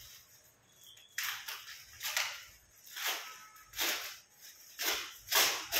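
Plastic packing wrap rustling and crinkling in about six short bursts, roughly one a second, starting about a second in, as it is pulled off a new office chair.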